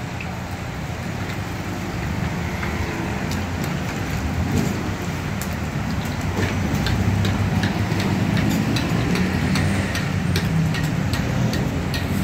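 Crab omelette frying in a wok over a flaming charcoal stove: a steady low rumble of fire and frying, with frequent irregular clinks and scrapes of the metal ladle and spatula against the wok.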